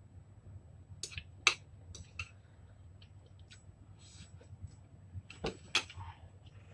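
Eating noodles with metal chopsticks from a bowl: several sharp clicks of the chopsticks against the bowl, the loudest about one and a half seconds in, and a short slurp of noodles around four seconds in.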